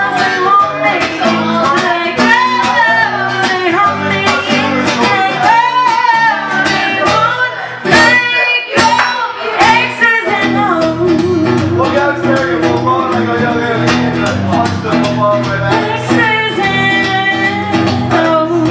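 Live female vocals sung over a strummed acoustic-electric guitar, the band playing a pop-rock song, with a brief break about halfway through.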